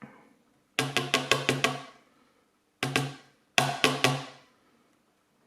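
Sharp knocks in quick runs, about six in a row about a second in, one near the middle and three or four more soon after: a lock cylinder being tapped against a hard surface to shake out stuck pin springs.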